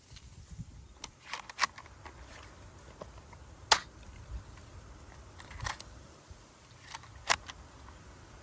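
Plastic toy submachine gun being handled, giving a few sharp separate clicks and snaps, the loudest a little under four seconds in.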